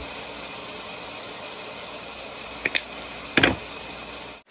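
A steady kitchen hiss, with a quick double click about two and a half seconds in and a louder knock just after: a plastic spice bottle's flip-top cap snapped shut and the bottle set down.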